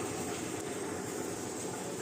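Mini concrete mixer machine running, a steady mechanical noise without let-up.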